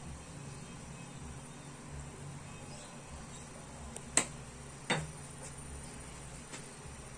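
Two sharp knocks about a second apart, the second with a duller thump, over a steady low hum: a glass sesame oil bottle being handled and set down after pouring.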